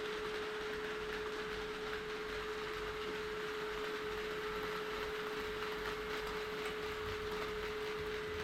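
Steady electric hum at one pitch over a faint even rolling hiss, from an HO-scale model train running on the layout.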